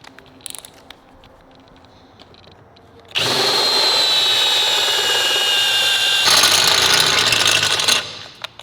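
Electric drill boring a half-inch hole in a steel hardtail frame tube for a plug weld. After a few light handling clicks it starts about three seconds in, its motor whine sinking slowly under load, turns harsher a little past six seconds and stops near the end.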